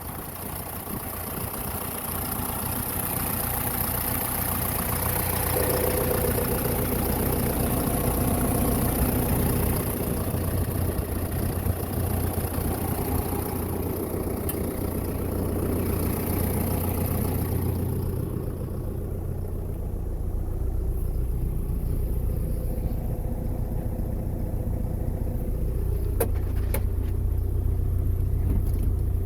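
2012 John Deere 6230 tractor's four-cylinder diesel engine running steadily, getting louder over the first few seconds. A high hiss over it stops about two-thirds of the way through, and a couple of sharp clicks come near the end.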